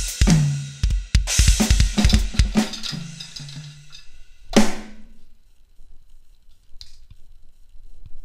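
Electronic drum kit played fast: rapid kick and snare hits with rolling tom fills for about four seconds, ending on one loud cymbal crash that rings out. Then the playing stops, leaving only a faint tap.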